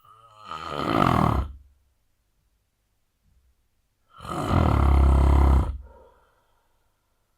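A man snoring intensely: two loud, rasping snores about three seconds apart, each lasting about one and a half seconds, the first swelling as it goes.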